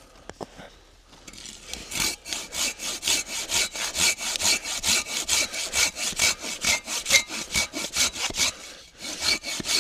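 Hand saw cutting through a wooden pole with quick, even back-and-forth strokes, about three a second. The sawing starts about a second in and pauses briefly near the end before starting again.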